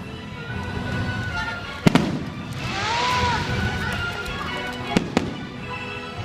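Fireworks going off over a show's music soundtrack: a sharp bang about two seconds in, the loudest, then a hissing swell, then two more bangs in quick succession about five seconds in.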